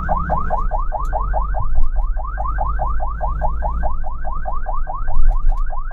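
Ambulance electronic siren sounding in fast yelp mode: a rapid rising wail that repeats about six to seven times a second. A steady low engine and road rumble runs beneath it.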